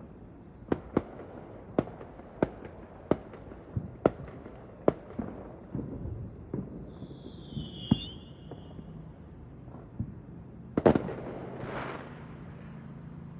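Fireworks and firecrackers going off: a dozen or so sharp bangs at irregular intervals, a high whistle about seven seconds in, and a louder cluster of bangs about eleven seconds in.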